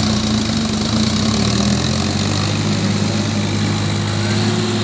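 Diesel engines of a Farmtrac 45 and a Sonalika DI 50 Sikander tractor running steadily under load as the two tractors pull against each other in a tug-of-war.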